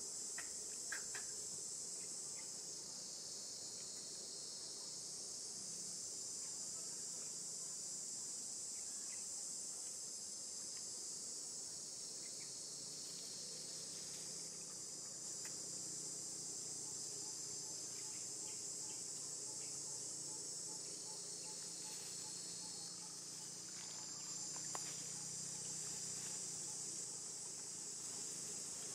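Insect chorus: a steady high-pitched drone that runs on without a break, with a few faint clicks.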